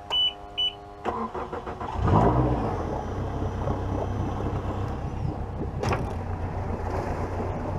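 Honda four-stroke outboard motor being started: two short beeps over a steady buzzing tone as the key is switched on, then the engine turns over and catches about two seconds in and settles into a steady idle. There is a single knock near six seconds in.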